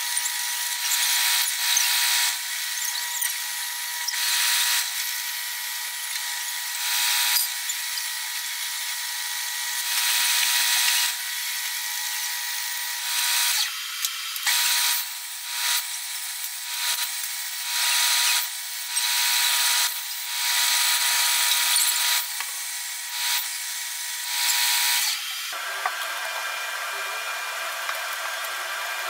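Belt sander running with a steady motor whine, broken by about a dozen louder grinding spells, each a second or so long, as the side of a cast-iron hand plane body is pressed onto the moving sanding belt. Near the end the whine stops and a different steady noise follows.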